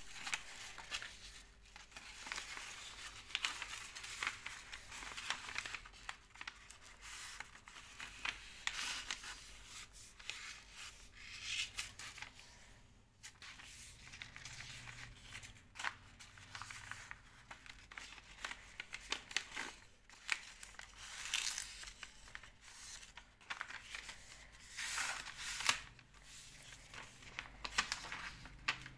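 A sheet of paper rustling and crinkling in irregular spells as hands slide it, fold it over and press the creases flat.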